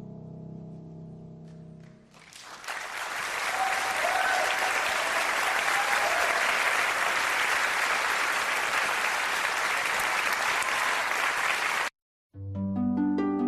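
The last notes of an instrumental piece fade out, then an audience applauds for about nine seconds. The applause cuts off abruptly, and after a moment of silence a harp piece begins with plucked notes near the end.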